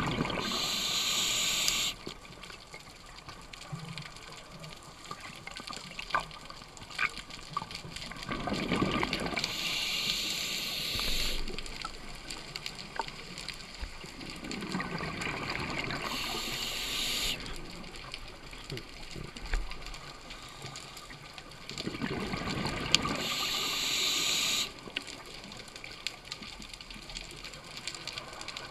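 Scuba diver breathing through a regulator underwater: four slow breaths about seven seconds apart, each a bubbling swell followed by a hiss of a second or two that stops sharply.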